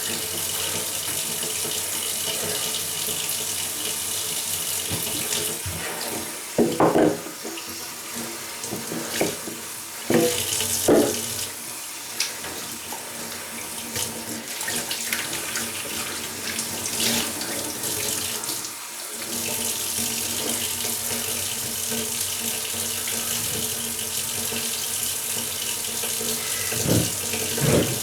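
Water running steadily from a tap, with a few short knocks and clatters now and then.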